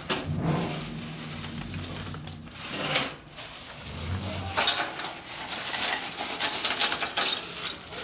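Loose small metal engine hardware (washers, nuts and spark plugs) clinking and rattling as a hand rummages through it. The clinks come thickest in the second half.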